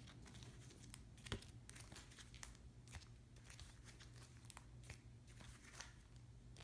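Faint crinkling and clicking of plastic comic-book bags as bagged comics are flipped through one after another, over a low steady hum.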